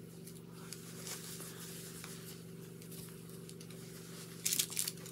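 Quiet room tone with a steady low hum, and a short flurry of rustling and light clicks about four and a half seconds in, as a plush doll's cloth costume and its small plastic knife are handled.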